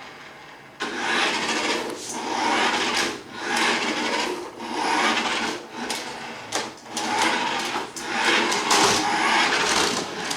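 Toy remote-control Hummer's small electric motor and gears whirring as it is driven, in repeated surges about a second apart as the throttle is pressed and let off.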